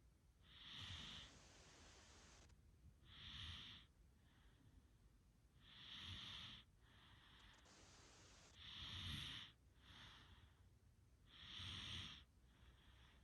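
A sleeping person snoring softly in a steady rhythm, with a louder breath about every three seconds and a fainter one between.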